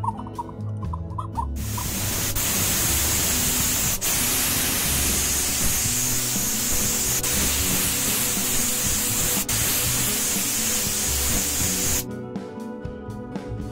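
Spray paint hissing steadily onto the parts, starting about a second and a half in, with a few brief dips, and cutting off abruptly near the end, over background music.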